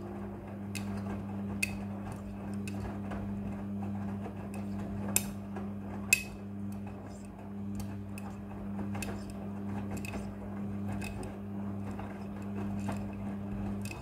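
Front-loading washing machine in its wash cycle: the drum motor hums steadily while the wet laundry tumbles, with irregular sharp clicks as buttons and other hard bits knock against the drum and door glass, two of them louder about five and six seconds in.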